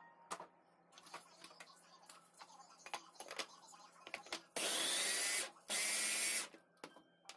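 Electric mini food chopper (a Fakir rondo) run in two pulses of about a second each, its motor whine rising as it spins up, as it chops pieces of sponge cake into crumbs. Before that, a knife scrapes and taps against the chopper's glass bowl and the motor head clicks onto it.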